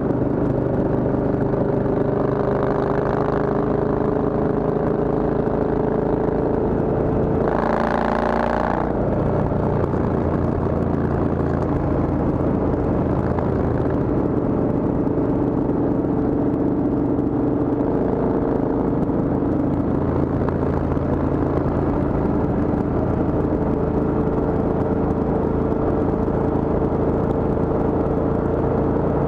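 Triumph Thunderbird motorcycle engine running steadily at highway cruising speed, with wind rushing past the camera. A brief louder rush of noise about eight seconds in.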